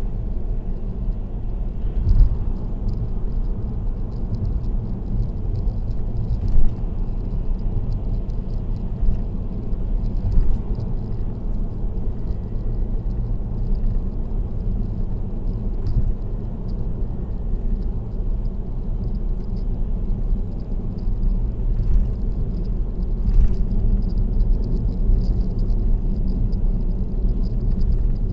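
Road noise inside a car cruising on an expressway: a steady low rumble of tyres and engine, with a few short knocks.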